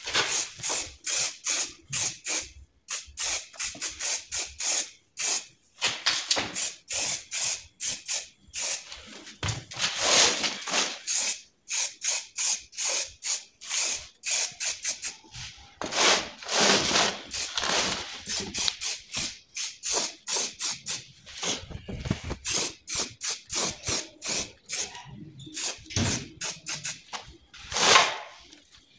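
Aerosol can of black spray paint being sprayed in many short hissing bursts, a few a second, with a few longer sprays.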